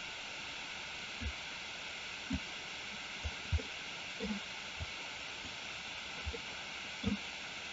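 Steady microphone hiss with about ten soft, short low thumps at irregular intervals.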